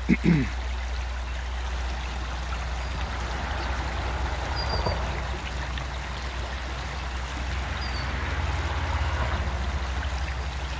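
Creek water running in a steady, continuous rush.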